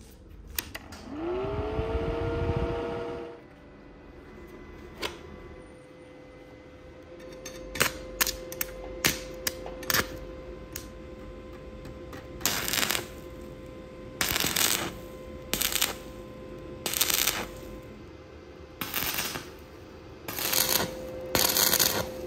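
A stick welder is switched on and powers up with a hum that rises in pitch and settles into a steady tone running underneath. After a few sharp clicks, about seven short crackling bursts of the electrode arc follow as a stack of nails is tack-welded together.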